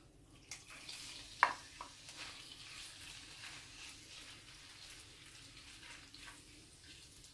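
Diced raw chicken sizzling in hot cooking oil in a non-stick frying pan as it is scraped in from a bowl and stirred with a wooden spatula. A sharp knock about one and a half seconds in.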